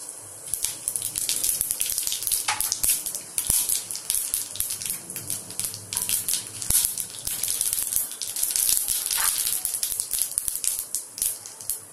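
Whole cumin seeds and dried red chillies sizzling and crackling in hot mustard oil: the tempering (phoron) stage of a curry. Dense, quick spitting starts about half a second in and keeps going.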